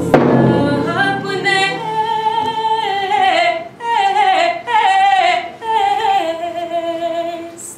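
A lone woman's voice singing unaccompanied, holding long notes that step from one pitch to the next, with short breaths between phrases. A sharp knock sounds right at the start.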